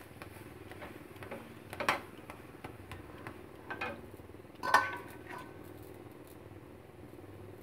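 Metal spatula knocking and scraping on a tawa while a paratha is pressed and turned on it: a few light knocks, the loudest about five seconds in, ringing briefly.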